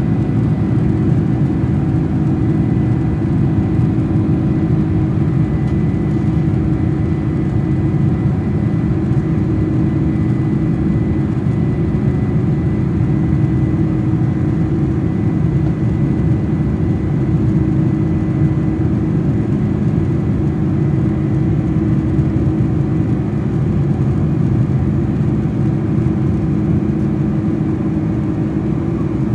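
Cabin noise of a Boeing 747-400 climbing out after takeoff: a steady low drone from its General Electric CF6-80C2 turbofan engines and the airflow, with a faint high steady whine that fades out about two-thirds of the way through.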